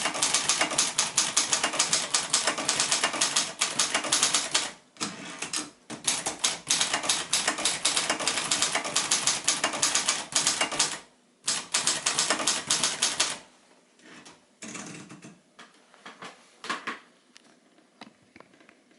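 Royal Century (Silver Seiko) ultraportable manual typewriter being typed on quickly, a fast stream of key strikes with short pauses. About 13 seconds in, the typing stops, leaving a few scattered quieter clicks.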